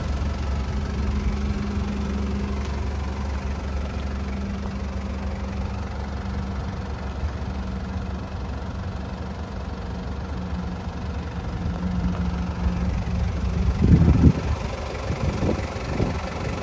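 Toyota Regius Ace's 1KZ-TE 3.0 L turbo diesel idling steadily, with a brief louder rumble about fourteen seconds in.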